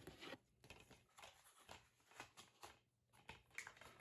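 Near silence with a few faint, light clicks scattered through it.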